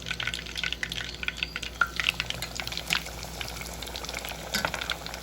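Breaded chicken cutlets frying in hot oil, with dense, irregular crackling and popping.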